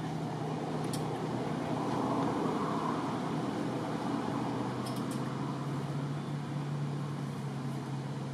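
Steady low hum of a running motor over a background hiss, dropping slightly in pitch about halfway through, with two faint clicks.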